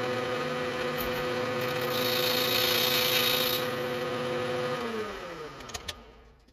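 Bridgeport milling machine spindle running steadily with a whine while an end mill cuts the side of a magnesium block, a hissing cutting sound rising in the middle. About five seconds in the spindle winds down, its pitch falling away.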